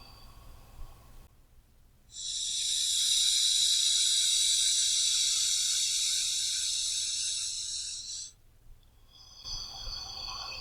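Slow, deep human breathing, paced as in a relaxation exercise. One long, hissy breath of about six seconds starts about two seconds in and slowly fades. After a pause, the next breath begins near the end.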